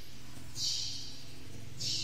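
Coloured pencil scratching on paper as it shades, with two separate hissy strokes, one about half a second in and another near the end.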